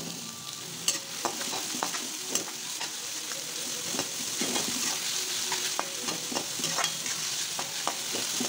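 Chopped onions sizzling in hot oil in a wok while being stirred with a spatula. Steady frying hiss, with frequent irregular clicks and scrapes where the spatula strikes the pan.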